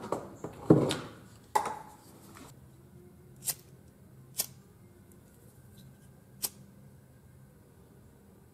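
Small handling noises and a few knocks from wires and parts, then three short sharp clicks spread over the next few seconds: a pocket lighter's spark wheel being struck to light it for shrinking heat-shrink tubing over butt-spliced wires.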